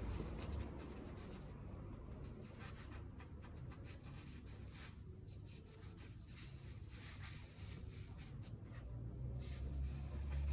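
Damp fingers rubbing and smoothing stoneware clay against the work surface: faint, irregular scratchy strokes while the clay spoon is shaped by hand.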